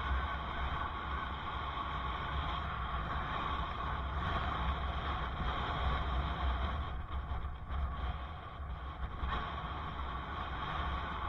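Steady wind rumble and road noise on a helmet camera's microphone while riding a bicycle along a city street; the noise drops briefly about two-thirds of the way through.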